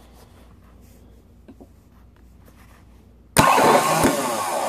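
Rebuilt Hitachi gear-reduction starter motor from a 1989 Nissan 240SX, run free on a bench from a battery. It stays silent at first, then about three and a half seconds in the solenoid clicks in and the motor spins up loud and noisy for over a second. The owner puts the noise down to the starter's planetary gears wanting grease.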